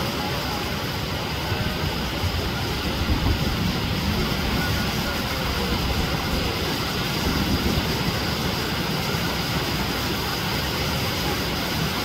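Sea surf breaking in the shallows, mixed with wind on the microphone: a steady rushing noise with a heavy, fluttering low rumble.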